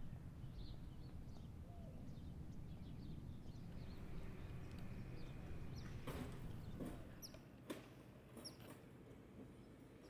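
Faint outdoor ambience: a low steady rumble that drops away about three quarters through, with a few short, high bird chirps, most of them in the second half.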